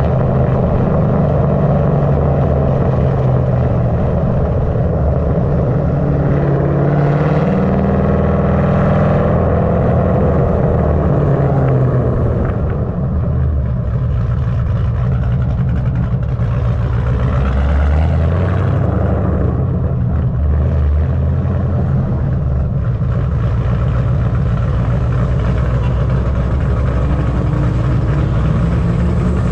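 Ford Mustang GT's 4.6-litre three-valve V8 running loud under hard driving, its revs rising and falling several times.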